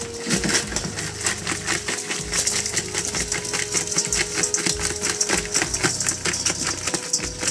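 Live freshwater crabs and shrimp clattering in a stainless steel basin as water is poured over them: a dense, rapid rattle of shells and legs against the metal, with the hiss and splash of the pouring water.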